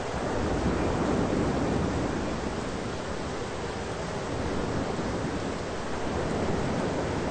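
Thunderstorm ambience: a steady rushing noise that swells louder about a second in and again around five seconds in.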